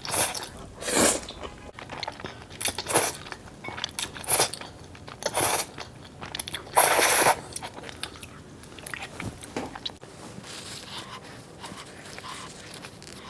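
Close-miked eating: a string of crisp crunching bites and chews, the loudest and longest crunch about seven seconds in, then softer chewing.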